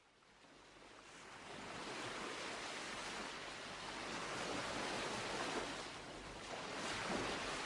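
Sea waves washing onto a shore: a steady rush of surf that fades in over the first couple of seconds, then swells and eases.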